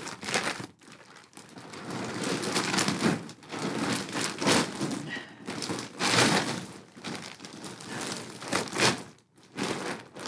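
Crinkling and rustling of a parcel bag and its wrapping being handled and opened by hand, in irregular bursts with short pauses between them.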